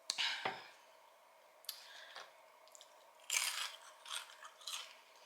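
Crispy fried chicken crunching in a series of short, crisp crackles, the loudest about three seconds in.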